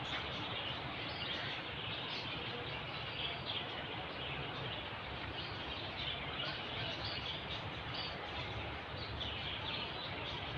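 Steady background noise with faint, scattered bird chirps.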